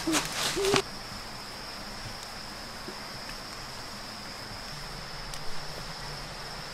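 A steady, high-pitched insect drone over an even forest background. In the first second a run of short hooting calls cuts off abruptly.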